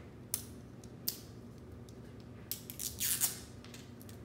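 Plastic wrapping on a toy surprise ball crinkling and rustling as it is peeled off by hand: a couple of sharp clicks in the first second or so, then a longer crinkle about three seconds in.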